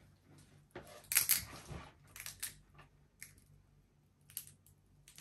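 A thin plastic glow stick being bent in the hands to crack the glass vial inside: a few short crackles and clicks, the loudest about a second in and smaller ones spread through the rest.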